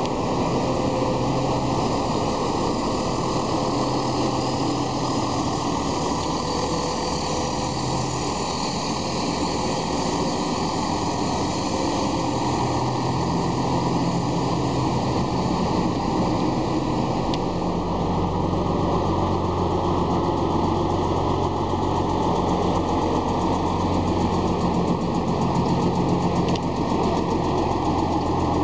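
Diesel engines of Volvo tractor units running at low speed as they drive slowly past one after another. A deeper, stronger engine note comes in about two-thirds of the way through as a lorry passes close by.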